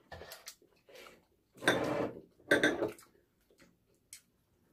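Takeout fried-chicken box being opened and handled: a few small clicks, then two louder rustles about a second apart, followed by faint ticks.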